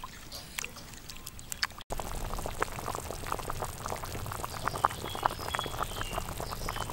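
A pot of black-chicken soup boiling hard, with dense, irregular bubbling pops. For the first two seconds, quieter sloshing and soft clicks as a metal ladle stirs the broth.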